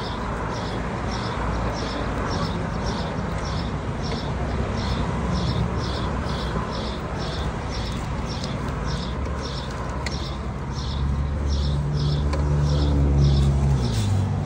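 Motor carbon brush rubbed back and forth on sandpaper to clean its face: a rhythmic scratching of about two strokes a second. A low rumble grows louder near the end.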